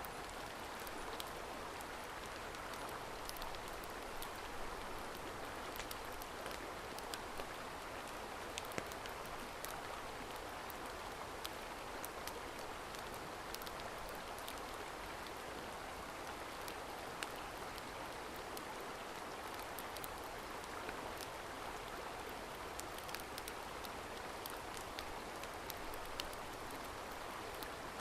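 Steady rushing of a mountain stream, with many scattered small sharp ticks over it.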